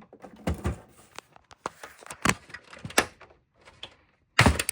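Hard plastic clicking, scraping and knocking as an Xbox 360's plastic case pieces are pried at with a pick, with a louder clunk near the end.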